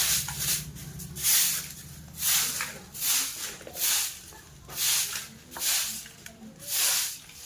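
Floor being swept with a hand broom (jhadu): about eight brisk swishing strokes, one roughly every second.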